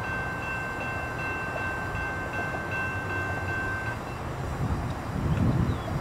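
A locomotive's five-chime Nathan K5LA air horn sounding from down the line, held steady and cutting off about four seconds in. A low rumble runs beneath it and swells near the end.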